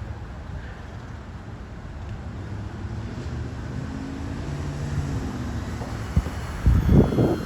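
Wind rumbling on a phone microphone, with a faint steady hum about halfway through and a loud low buffet of wind or handling near the end.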